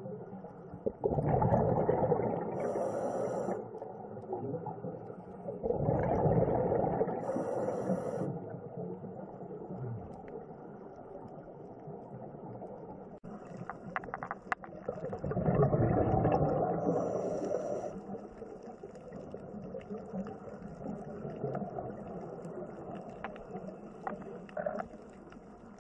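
Scuba diving sounds picked up by an underwater camera: three swells of rushing bubble and regulator noise, about 1, 6 and 16 seconds in, each with a brief high hiss toward its end. Between them is a faint steady underwater background with a few small clicks.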